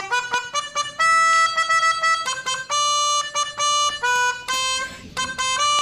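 Bus telolet horn, a set of musical air horns, playing a quick melody of short stepped notes with a few longer held ones.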